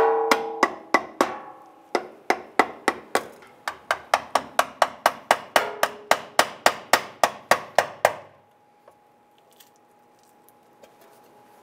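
Hammer tapping a pry tool wedged under the edge of a stamped-steel rear differential cover, a quick run of metallic strikes, about three or four a second, each with a short ring, to break the cover's seal so the gear oil drains. The tapping stops about eight seconds in.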